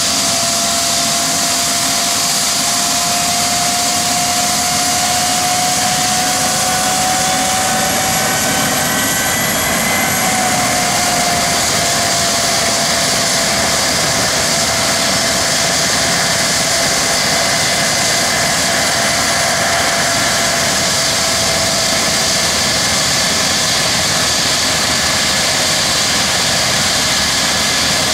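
Airbus H135 P3 helicopter running on the ground with its rotors turning: the steady whine of its twin Pratt & Whitney PW206B3 turboshaft engines over a loud, even rush of rotor and exhaust noise. The whine tones shift slightly in pitch about ten seconds in.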